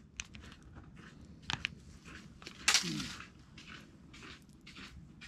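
Soft close-up handling noises of hands working a soft-plastic PowerBait worm and a small jig: scattered light clicks and rustles, with one louder rustle a little past halfway.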